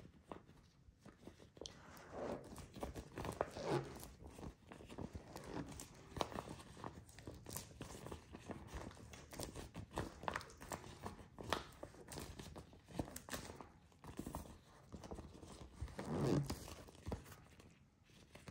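Clear plastic bobo balloon being stretched and worked between the hands: quiet crinkling and rubbing of the plastic with many small clicks and crackles.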